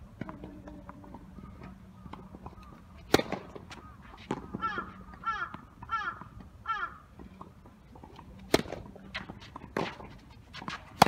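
A crow cawing four times in a row, about two-thirds of a second apart, midway through. Around the calls come the sharp pops of tennis balls being bounced and hit with rackets, and the loudest hit comes right at the end.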